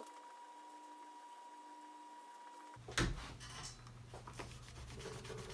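Quiet room tone with a faint steady whine, then a single knock about three seconds in. After the knock, a damp magic eraser (melamine sponge) scrubs back and forth over a textured vinyl door panel in quick rubbing strokes.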